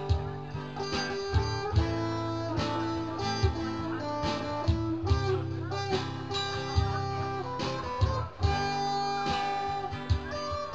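Instrumental passage of live music: guitar strummed and picked with sharp, regular accents and no singing.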